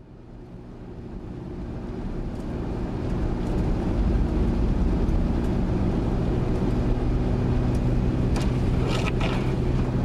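Steady engine hum and tyre noise heard from inside a car driving on a snow-covered road, fading up over the first few seconds. A short cluster of clicks comes near the end.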